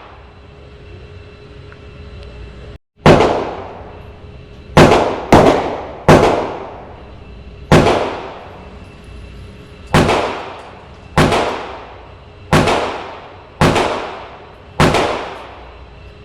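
Glock 19 9mm pistol being fired: ten shots at an uneven pace of roughly one a second, starting about three seconds in, each with a ringing tail.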